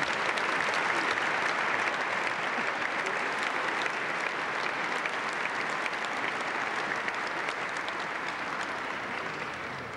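Large auditorium audience applauding: dense, even clapping that slowly dies down toward the end.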